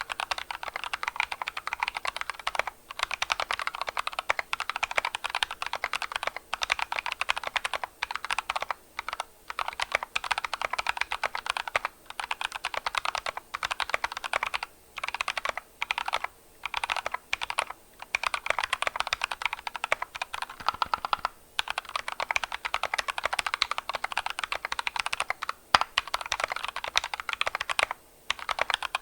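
Continuous fast typing on a custom 60% mechanical keyboard (GK61 kit, ABS case) with lubed Kailh BOX Red linear switches and side-printed PBT keycaps. It makes a dense clatter of keystrokes broken by brief pauses, with a lower-pitched sound.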